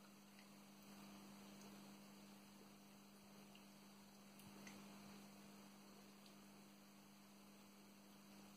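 Near silence: a faint steady hum with a few light scattered ticks.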